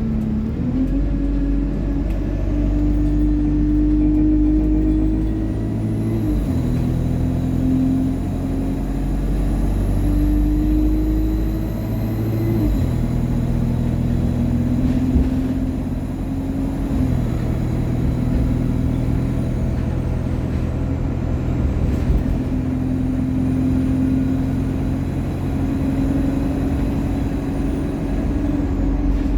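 ADL Enviro200 bus under way with its Allison automatic gearbox: the drivetrain note climbs in pitch, then drops sharply at each gear change, three times, before running on steadily. A faint high turbo whine rises and falls with the engine.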